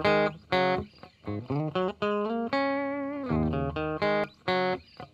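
Intro music: a guitar playing a melody of short plucked notes, some sliding up in pitch, with one longer held note about halfway through.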